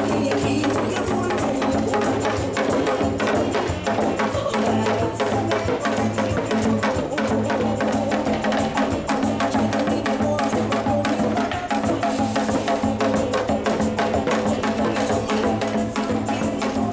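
Lively percussion played with sticks on a set of Korean barrel drums (buk), many quick hits over loud, steady amplified backing music.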